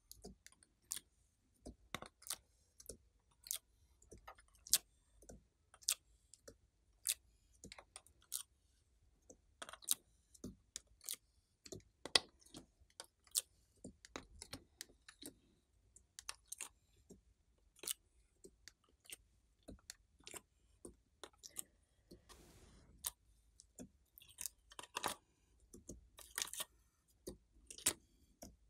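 Hands squishing and stretching slime, which gives sticky clicking pops at irregular intervals of about one or two a second, with a brief scrape about three-quarters of the way through.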